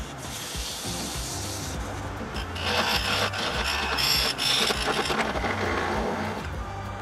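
A thin parting tool cuts into spinning wood on a lathe with a rough, scraping hiss. The hiss grows louder about two and a half seconds in and eases off near the end as the piece is parted off.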